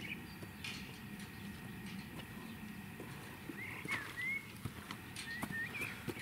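Footsteps tramping over soft, muddy, rutted ground, with short chirping bird calls that swoop up and down about four seconds in and again near the end.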